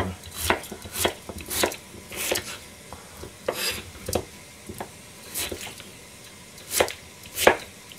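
Kitchen knife cutting a daikon radish into chunks on a plastic cutting board: about a dozen unevenly spaced cuts, each a short sharp knock of the blade on the board.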